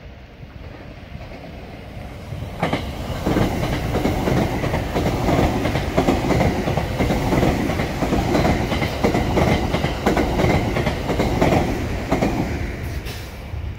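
JR West Thunderbird limited express electric train running through the station. It builds to a loud rumble about three seconds in, with a rapid clatter of its wheels while the cars go past, and fades away near the end.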